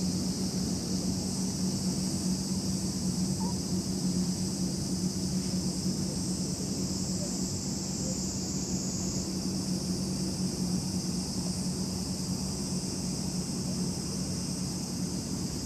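Steady outdoor ambience: a constant high-pitched insect chorus over a low, steady hum.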